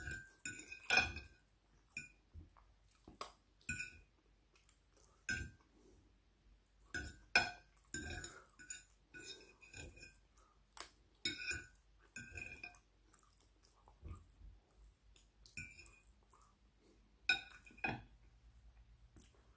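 Metal fork clinking and scraping against a glazed ceramic plate as food is scooped from it, with many short, irregular clinks that stop near the end.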